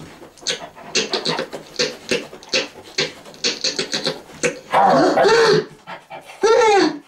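A person imitating a dog with their voice: rapid panting, then two loud drawn-out whines about five and six and a half seconds in, the second sliding down in pitch.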